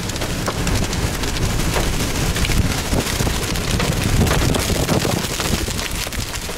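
Heavy rain and wind noise heard from a moving vehicle: a dense, steady hiss peppered with many small taps of rain striking, over a strong low rumble of wind and road noise.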